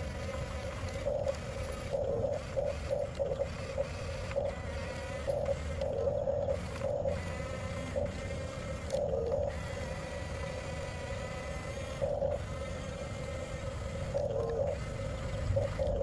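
Electric drive motors and plastic gearboxes of a 1/14 scale Huina RC bulldozer whining, flaring in short irregular bursts as the throttle is worked, over a low rumble.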